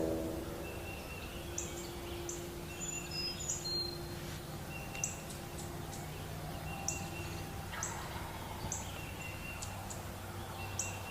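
Songbirds calling in the woods: short high whistled notes and chirps repeating about once a second, over a low steady background hum.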